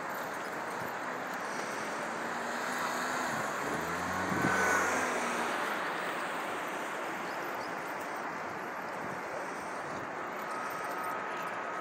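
City road traffic: a steady hum of passing cars and buses, with one vehicle passing close about four seconds in, its engine note swelling and falling away. A faint thin whine joins near the end.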